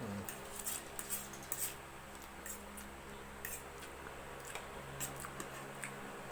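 Eating sounds of a person chewing carbonara pasta: scattered short, soft clicks and smacks of the mouth and utensils, over a steady low hum.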